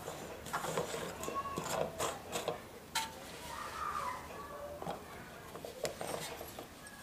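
Scattered light clicks and clinks of metal parts and tools being handled, with one sharper click about three seconds in.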